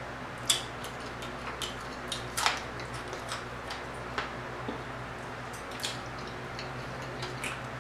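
Eating sounds from crispy fried croaker fish: irregular sharp crackles and clicks, a few a second, as the crust and flesh are pulled off the bones by hand and chewed, over a low steady hum.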